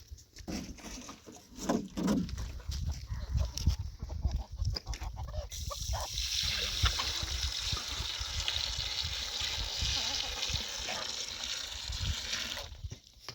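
Water pouring or running steadily for about seven seconds, starting about five seconds in and stopping abruptly near the end. Before it come a few scattered knocks and a short call.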